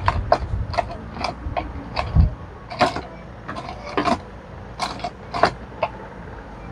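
A run of irregular sharp clicks and light taps, roughly two a second, with a dull thump about two seconds in.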